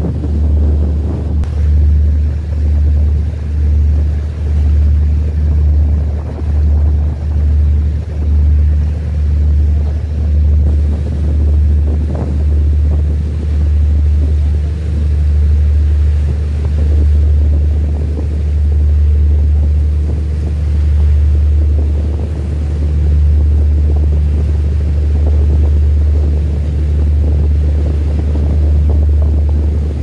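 Loud, steady low rumble of a boat's engine on open water, mixed with wind buffeting the microphone; it pulses about once or twice a second in the first half, then evens out.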